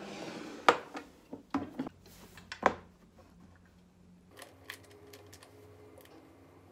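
A white moulded plastic chair seat and its wooden-legged metal wire leg frame knocking and clacking as they are handled and fitted together during assembly: three sharp knocks in the first three seconds, then lighter clicks and ticks.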